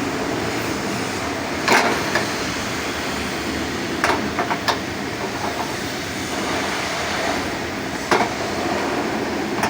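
Engine idling roughly: a steady running noise broken by four irregular sharp knocks. This is a misfire, logged as a P0300 random-misfire code and put down to a faulty fuel injector.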